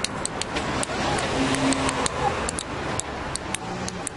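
Two metal-rimmed Japanese fighting tops (kenka-goma) spinning against each other, their rims clicking sharply and irregularly, several times a second, over a steady hiss.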